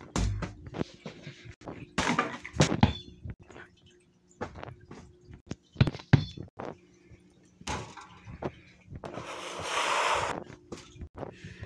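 Handling noise from a handheld phone camera and toys being moved about: scattered knocks, clicks and thumps, a low thump right at the start and a rustle about nine seconds in.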